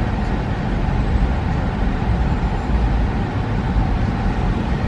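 Steady engine and road noise heard from inside a car's cabin.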